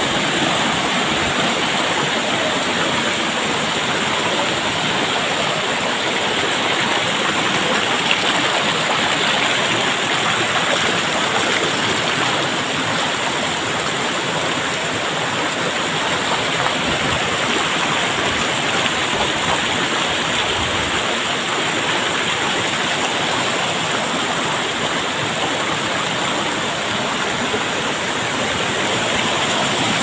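Shallow rocky stream rushing over stones and small cascades: a steady, even rush of water.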